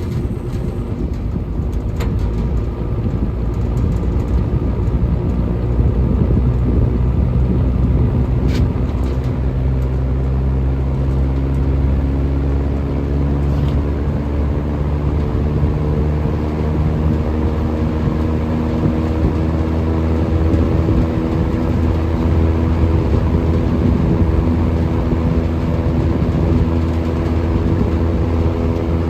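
Vintage GE W25 five-wing box fan running: a steady whoosh of air and motor hum that swells over the first few seconds. The hum slowly rises in pitch as the stiff, under-lubricated motor gains speed while being woken up. A couple of faint clicks sound early on.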